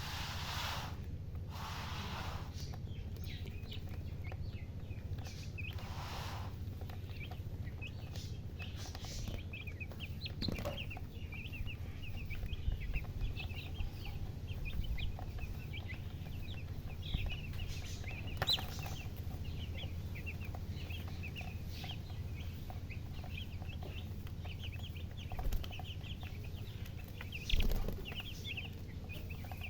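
A brood of baby chicks peeping in rapid, overlapping high chirps over a steady low hum, with a low thump near the end.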